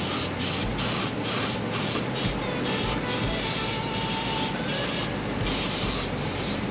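Aerosol electrical contact cleaner sprayed in a quick series of short hissing bursts, roughly two or three a second, with a brief pause about five seconds in. It is being used to wash ground-up brush dust out of a disassembled tractor starter.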